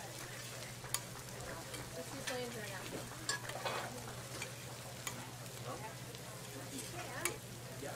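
Cornmeal johnny cakes frying on a greased flat-top griddle, giving a steady sizzle. A few sharp clicks of a wooden spatula against the griddle are heard about once every two seconds.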